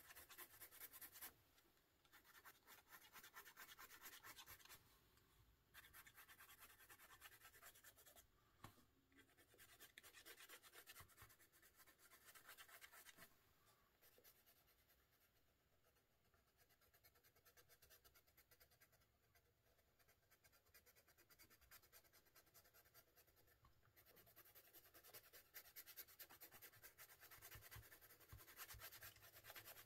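Faint scratching of an Arrtx soft-core colored pencil on the paper of a coloring book, light quick shading strokes. The strokes come in spells, with a quieter stretch in the middle.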